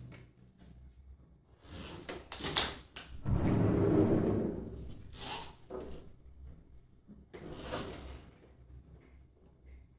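Handling noises: scattered knocks and clicks, with a louder scraping slide of a second and a half about three seconds in, like something being dragged or a drawer run open.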